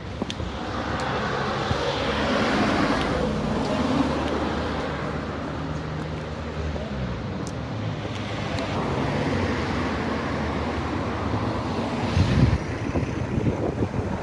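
Road traffic passing: a steady wash of tyre and engine noise with low engine hum rising and falling as vehicles go by. There is a short low rumble near the end.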